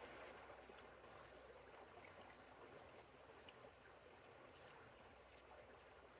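Faint, steady flow of a creek's water.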